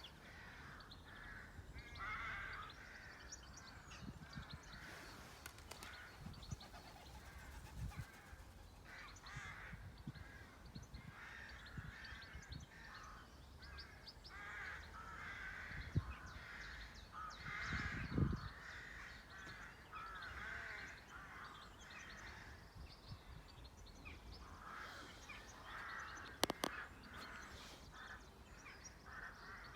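Several birds calling, with many short overlapping calls throughout. A few brief low thumps and one sharp click near the end.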